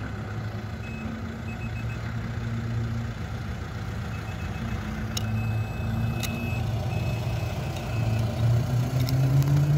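Car engine idling, its revs rising near the end. A faint high beeping comes and goes over it.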